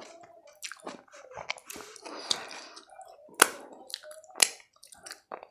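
Close-miked eating: wet chewing with mouth clicks and lip smacks, two of them sharper and louder about three and a half and four and a half seconds in.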